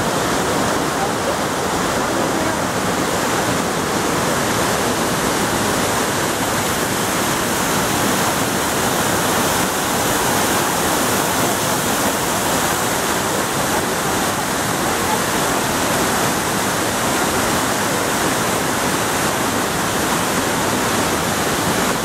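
Loud, steady rush of a waterfall and stream, an even wash of water noise with no change.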